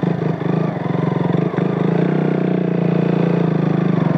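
Motorcycle engine running at a steady pace while the bike is ridden, its rapid, even firing pulses clearly heard.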